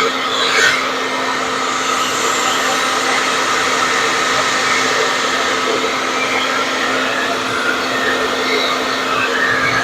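Handheld blow dryer running steadily: a rush of air over a constant motor hum, with a brief louder moment just after the start.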